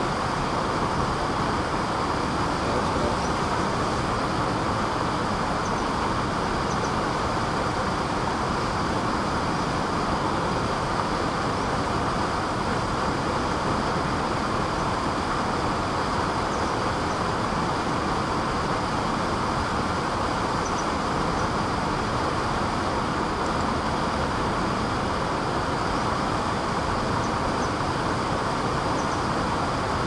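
Small waterfall plunging into a rock pool: a steady rush of falling water.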